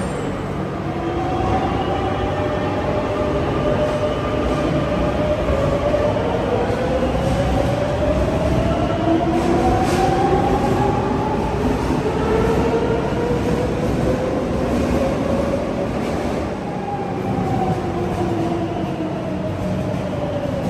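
Madrid Metro electric train pulling along the platform, with a steady low rumble of wheels on rail under the whine of its traction motors. The whine rises in pitch through the first half as the train gathers speed, then levels off and falls away near the end.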